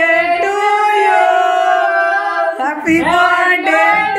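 A group of people singing a birthday song together. They hold one long note, then start the next line a little under three seconds in.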